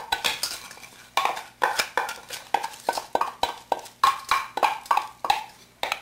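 Damp soaked rice being tipped and scraped out of a glass bowl into a stainless steel electric wok. The bowl and a wooden spatula make an irregular run of sharp clinks and knocks on the metal, about three a second, some ringing briefly.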